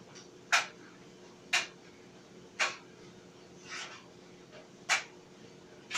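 Clothes dryer running: a steady low hum with a sharp click about once a second.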